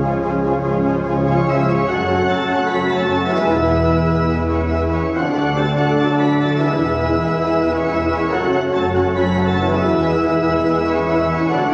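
1913 Wilhelm Rühlmann pipe organ (opus 366) playing loud, sustained chords over bass notes, with the chords changing every second or two. The instrument is freshly restored and only pre-voiced, not yet fully tuned.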